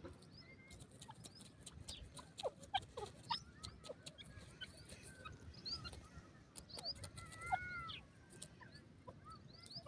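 Faint, soft bird chirps and short squeaky notes that rise and fall, scattered with small clicks, with one longer arched call near the end. The soft notes fit a grey francolin's quiet calls as it scratches in the soil, mixed with other small birds.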